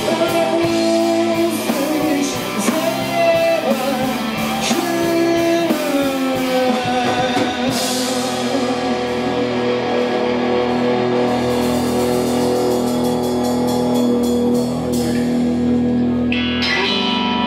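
Live rock band: a singer over electric guitar, bass guitar and drums. From about six seconds in, the band holds long notes, with cymbal crashes.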